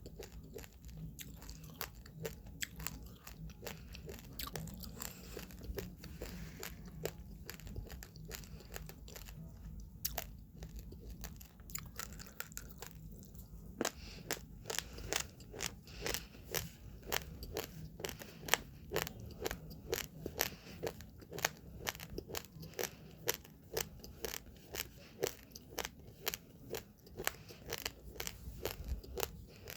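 Uncooked rice grains being crunched between the teeth: a steady run of sharp little cracks that come faster and louder about halfway through.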